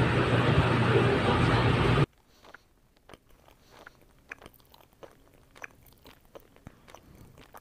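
A loud steady low droning hum that cuts off suddenly about two seconds in. Then faint chewing and crunching of cabbage balls, with small sharp clicks of a fork on a plate.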